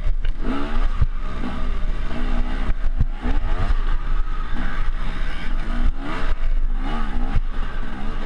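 Dirt bike engine revving up and down over and over under load on a steep climb, the pitch rising and falling about once a second. Short low knocks come from the bike bouncing over rough ground.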